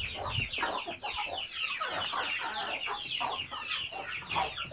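Several chickens clucking and calling together, a dense run of short, high, overlapping calls.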